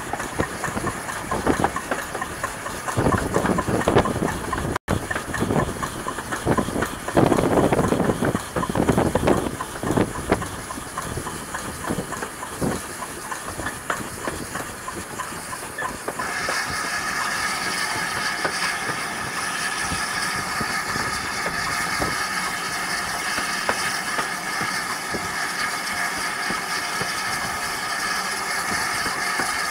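Steam locomotive hauling a train, heard from a carriage window: uneven exhaust beats and wheel clatter. About halfway through, the beats give way to a steadier rushing hiss with a high ringing tone.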